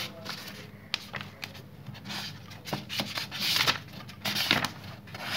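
Pages of a thick textbook being leafed through by hand: a run of paper rustles and swishes with light ticks, the loudest swish about three and a half seconds in.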